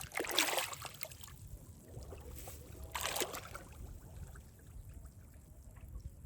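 Water splashing and sloshing in a few short bursts, the loudest in the first second and another about three seconds in, over a low steady rumble.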